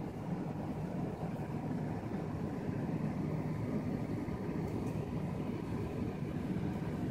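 Corsair HX1000 PC power supply and computer fans running with a steady hum and whir, with one faint high tick about five seconds in: the random clicking the owner fears is a PSU fault that needs an RMA.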